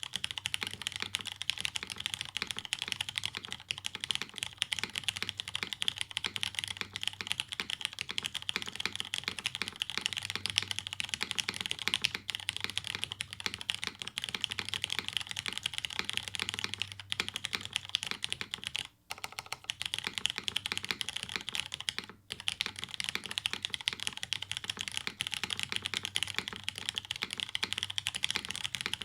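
Continuous fast typing on a Hineybush Hiney TKL mechanical keyboard with diamond-polished Cherry MX Brown tactile switches on a carbon fiber plate, no dampening, and CRP R4 keycaps. The key presses run on steadily, with two short pauses about two-thirds of the way through.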